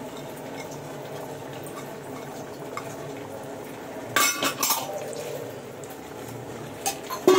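Steel spoon clinking against a large aluminium cooking pot, a quick cluster of ringing clinks about four seconds in and two more sharp clinks near the end, over a steady low background noise.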